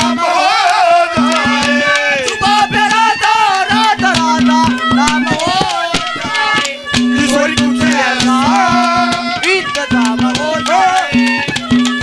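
Instrumental interlude of Haryanvi ragni folk music: a melodic instrument plays a bending, ornamented line over quick, steady hand-drum strokes.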